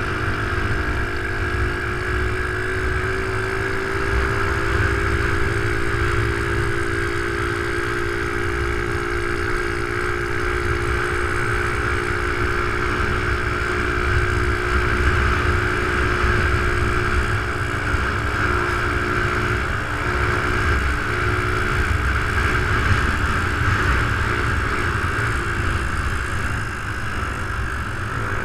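Motorcycle engine running steadily at cruising speed, recorded from on board, with heavy wind rumble on the microphone.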